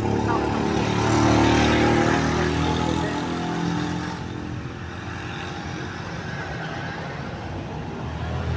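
A heavy road vehicle's engine passing close by, growing louder for a couple of seconds with its note sliding slightly down, then fading into steady traffic noise.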